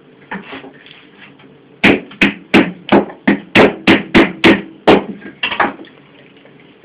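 A large knife chopping through a roast chicken onto the table: about ten sharp blows in three seconds, then a few lighter ones.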